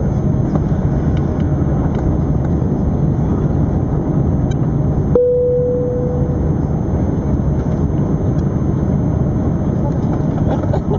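Airbus A380 cabin noise in flight: a steady low rumble of engines and airflow. About five seconds in, a single cabin chime sounds and fades.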